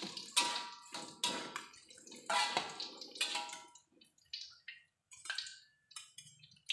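Fried tempe being lifted out of hot oil with a wire spider strainer and a metal spatula: the oil crackles and sizzles while the utensils scrape and clink against the aluminium wok, with short metallic rings. The clatter thins out after about four seconds, leaving a few light knocks.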